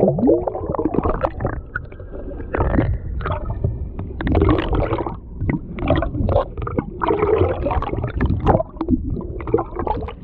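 Muffled, irregular water gurgling and sloshing heard through a submerged action camera, over a low rumble, with a sharp knock at the very start.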